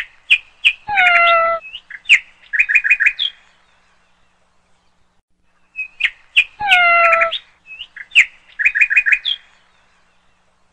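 Bird chirping: a short phrase of quick high chirps with one falling call and a fast run of four chirps, played twice over the same way with a pause of about two seconds between.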